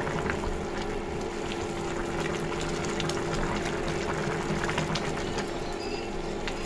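Pan of mixed vegetables and chana dal boiling hard in water, a steady bubbling with many faint crackles and a steady low hum underneath. A spatula stirs through the vegetables partway through.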